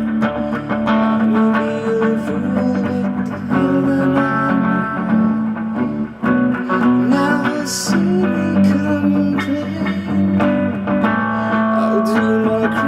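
Instrumental break in a pop-rock song: guitar playing sustained, bending melody notes over a steady bass line, with no lead vocal.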